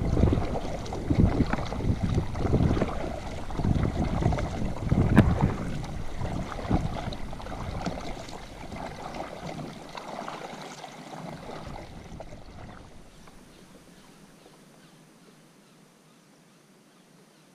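Kayak paddle strokes splashing in the water, in uneven surges, with wind buffeting the microphone. The sound dies away over the second half to a faint hiss.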